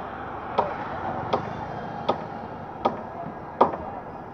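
Evenly spaced blows of a tool striking wood in wooden fishing boat building, about one every three-quarters of a second, each with a short ring.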